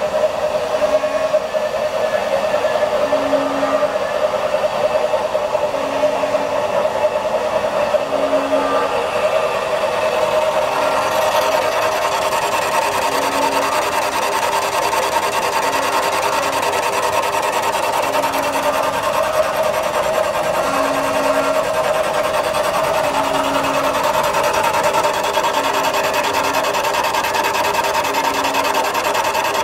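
CNC machining-center spindle running a cutter into a bolt boss of a cast-iron small-block Chevrolet engine block: a steady machine whine with short low hums recurring every second or two, and a cutting hiss that grows about ten seconds in.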